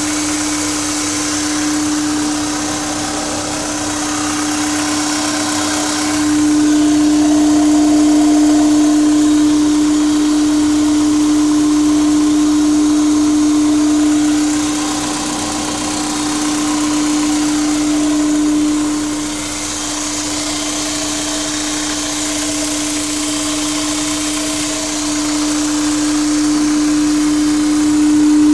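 Honda S2000 with a K&N intake filter, giving off a steady hum at one pitch over a hiss. The hum swells louder and softer in slow waves lasting several seconds without changing pitch. The owner is unsure whether this hum is normal.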